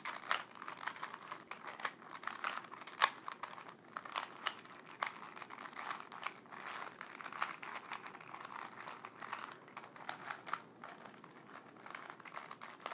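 Rubik's cube being turned by hand: irregular plastic clicks and clacks as the layers rotate, over a light rustle of handling.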